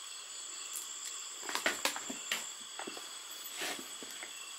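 Faint steady high-pitched chirring of crickets, with a few light clicks and rustles of hands handling the leaf-wrapped cake, most of them a little past the first second and one more near the end.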